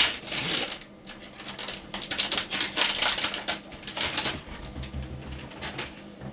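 Foil trading-card booster pack being torn open and its wrapper crinkled, a rapid run of crackles and rustles that dies away near the end.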